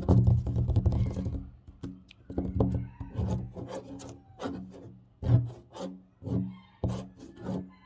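Fast tapping and scratching on a tabletop: a dense flurry of quick taps and scrapes for about the first second and a half, then sparser single taps and short scratches with brief gaps between them.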